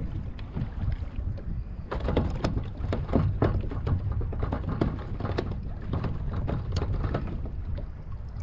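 Wind buffeting the microphone over a low rumble, with water slapping and splashing against a plastic fishing kayak's hull; from about two seconds in, the slaps come as a dense, irregular run of sharp clicks and splashes.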